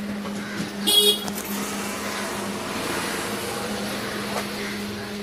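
A vehicle horn gives one short honk about a second in, over steady street traffic noise and a low steady hum.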